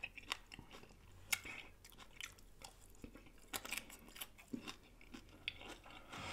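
Faint close-miked mouth sounds of two people chewing tacos: scattered small wet clicks and soft crunches.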